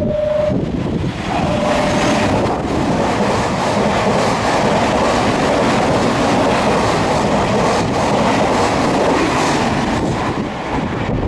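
A Nankai electric train running through the station at speed without stopping, a loud steady rush of wheels and motors that builds about a second in and eases near the end. Two short beeps of a steady tone sound in the first two seconds.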